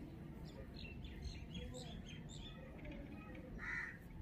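Small birds chirping in short scattered calls, with a crow cawing once near the end.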